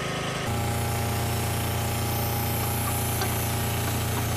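Hand-held hydraulic hammer running, its steady hammering drone starting about half a second in over the hum of an engine-driven power unit.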